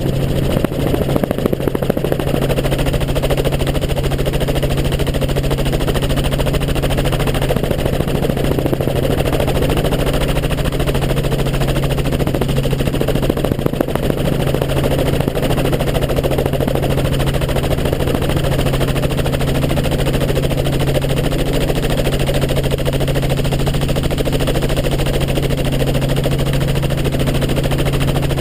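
Helicopter in flight: steady engine and rotor noise with a constant low hum and a fast, even chop.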